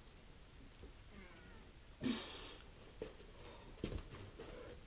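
A boulderer straining on an overhang: a short high whine about a second in, a loud hissing exhale about two seconds in, then a single sharp knock near the end.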